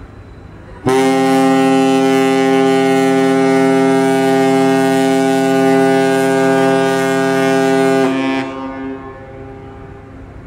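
Ship's horn of the passenger ship KM Bukit Raya sounding one long, steady blast, starting about a second in and lasting about seven seconds before dying away.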